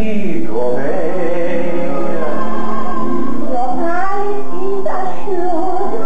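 Recorded show tune: a woman singing over band accompaniment, voicing an audio-animatronic character.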